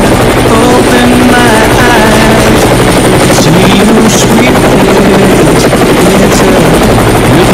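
Helicopter running up close with its rotor turning, a loud, steady, fast, even chop over the engine noise.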